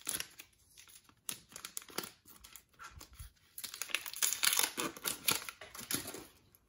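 Foil wrapper of a Panini Donruss Optic basketball card pack crinkling as it is torn open: scattered crackles at first, then a dense run of crinkling for about two and a half seconds as the wrapper is peeled off the cards.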